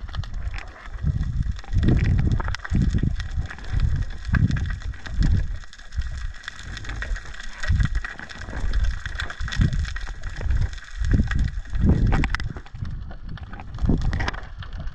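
Underwater sound picked up by a GoPro hanging on a fishing line: irregular, muffled low surges of water moving against the swaying camera, with faint clicks higher up.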